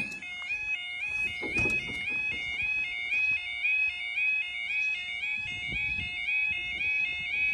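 Level crossing warning alarm sounding continuously: a rapid warble of tones stepping up and down. A sharp knock right at the start.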